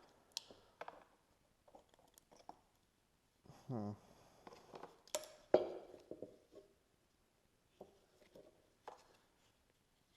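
Hands handling small plastic parts: scattered light clicks and taps, with a short falling creak-like sound about four seconds in and a sharper click soon after.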